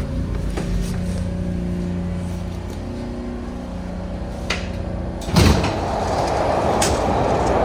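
A vehicle's steady motor hum with low rumble. About five seconds in there is a click, then a heavy thump, and a louder rushing noise follows.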